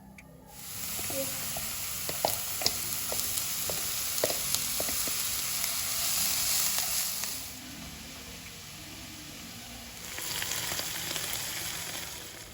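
Food sizzling in hot oil in a pan: a steady hiss with scattered sharp crackles that eases off about halfway and swells again near the end.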